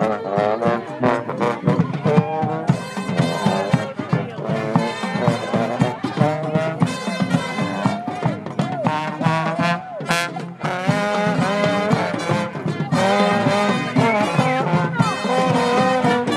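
Brass band playing live, several horns together over a steady beat.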